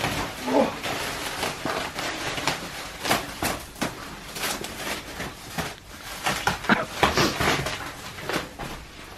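Black plastic stretch wrap being pulled and peeled off a smoker's steel body, crinkling and crackling irregularly.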